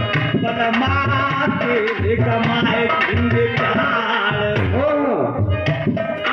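Live folk music: hand drums beating a steady rhythm under a wavering, sliding melody.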